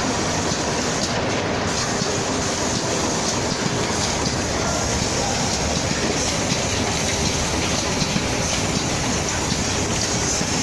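Automatic cartoning machine running steadily: an even, dense mechanical clatter from its flighted infeed conveyor and carton-loading mechanism as it packs single wrapped bars into cardboard cartons.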